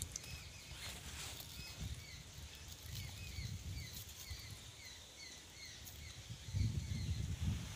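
A small bird chirping over and over, short high chirps about two a second, against outdoor background noise. A low rumble comes up near the end.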